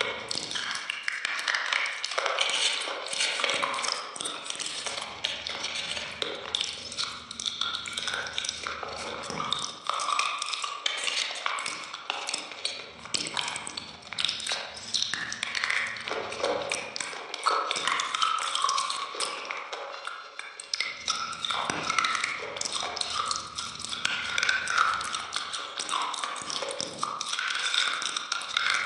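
Close-miked biting and chewing of a block of ice cream, with many quick crackles, clicks and wet mouth sounds.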